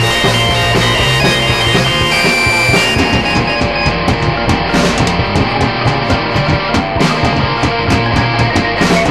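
Rock band playing a fast song: guitars and drums over a steady, quick beat.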